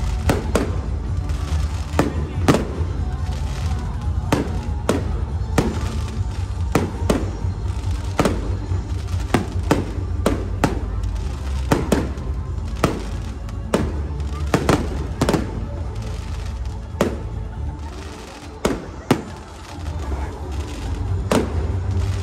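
Aerial fireworks display: shells bursting overhead in a rapid, irregular string of bangs, over music played for the pyromusical show. The bangs thin out briefly in the last third, where two sharp reports come close together, then pick up again.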